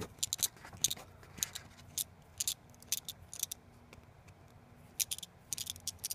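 Small, sharp metallic clicks and ticks, in irregular clusters, from a precision screwdriver working the tiny screws out of an iPhone 6.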